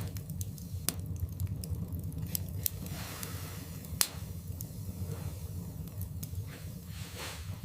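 Wood fire burning in a fireplace: a steady low rumble of flames with frequent sharp crackles and pops, the loudest pop about four seconds in.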